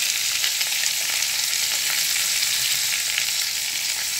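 Crab pieces frying in a wok: a steady sizzling hiss with small scattered crackles.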